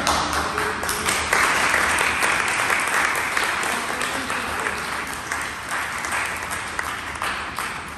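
A group of people applauding: dense hand clapping that starts loud and gradually dies away toward the end.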